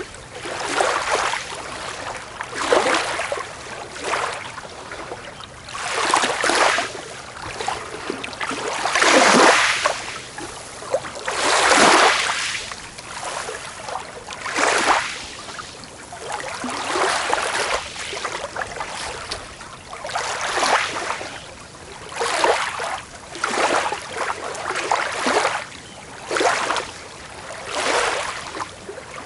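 Small waves breaking and washing up a beach, one after another every second or two, each a short rush of hiss that rises and fades.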